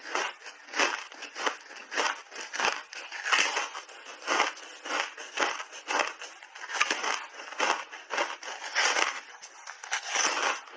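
Close-miked crunching of a frozen berry ice bar being bitten and chewed: a steady run of crisp, sharp crunches, about three a second.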